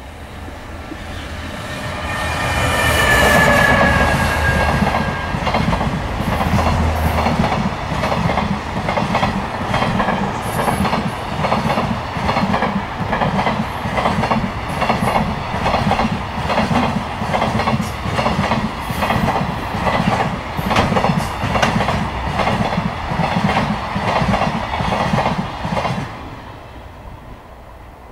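High-speed electric-hauled container freight train passing close by. The locomotive comes in with a whine that falls in pitch as it goes past. The container wagons follow with a steady clickety-clack of wheels over rail joints, about once a second, which drops away suddenly near the end as the last wagon passes.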